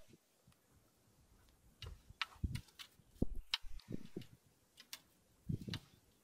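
Irregular sharp clicks and a few soft knocks from fishing tackle being handled close by: a spinning reel and rod.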